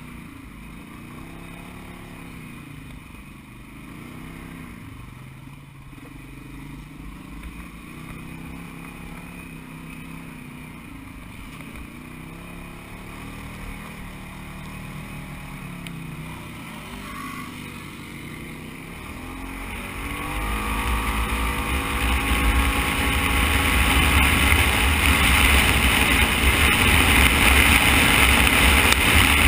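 Side-by-side UTV engine heard from the driver's seat, crawling along a rough trail with the revs rising and falling. About twenty seconds in it speeds up and gets much louder, with a steady rushing noise over the engine.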